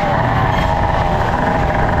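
Yamaha dirt bike engine running hard at high revs, its pitch wavering slightly with the throttle, over heavy wind rumble on the microphone.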